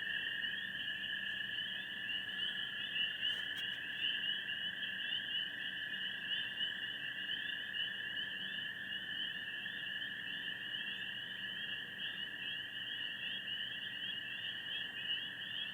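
Night chorus of calling animals: a dense, unbroken trilling in two high-pitched layers, one held steady and one higher layer pulsing rapidly.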